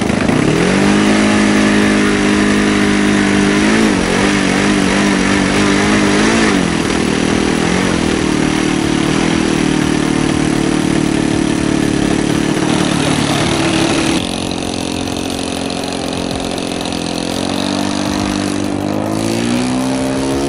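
O.S. 56 model aircraft engine in a radio-control Shiden-kai warbird catching on an electric starter and running loud and close, its pitch dipping and rising as the throttle is worked. About two-thirds of the way through, the engine sounds farther off and then rises steadily in pitch as the plane speeds up for its takeoff run.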